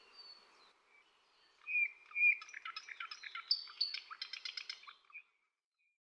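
Bird song: two clear whistled notes a little under two seconds in, then a fast run of chirps and trills that stops about five seconds in.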